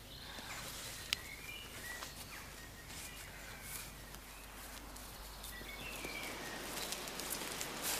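Faint woodland ambience: a steady hiss with a few short bird chirps and some rustling near the end.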